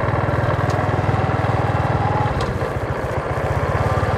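Small motorbike engine running on the move, with a rapid low pulsing; it eases off a little just past the middle, then picks up again.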